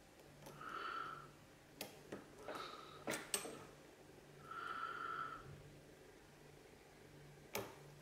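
A few small, sharp clicks of a lock pick and tension tool working in the pin-in-pin core of a Mul-T-Lock C16 padlock, with two whistling breaths through the nose in between.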